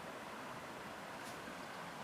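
Flowing water murmuring steadily.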